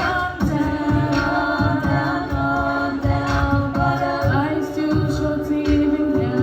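Singing with held notes that slide between pitches, over a steady low beat.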